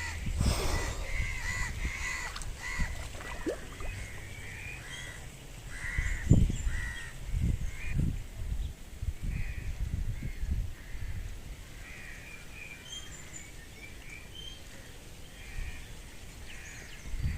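Birds calling outdoors in many short, repeated calls, over low rumbles and a few dull thumps, the loudest about six seconds in.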